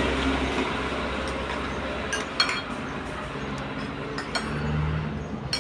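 A few light clinks of dishes and cutlery against one another, with a faint low hum underneath.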